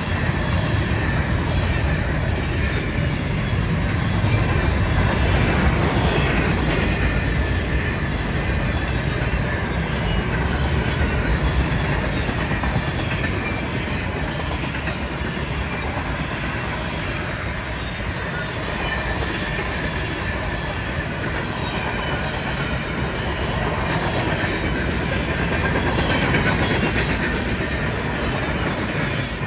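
Mixed freight train cars rolling past at about 60 mph: a steady, loud rumble of steel wheels on rail.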